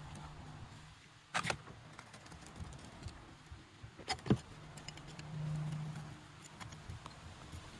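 Light metallic clinks and scrapes as a metal rod pries a freshly cast brass ingot up out of its sand mold, with two sharper clinks, about a second and a half in and again a little past four seconds, and a soft low hum around five to six seconds.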